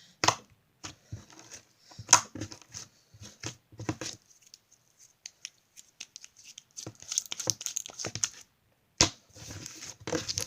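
Hands stretching and pressing a clear glossy glitter slime: scattered sticky crackles and pops, with a quiet pause near the middle and a denser run of crackling afterwards.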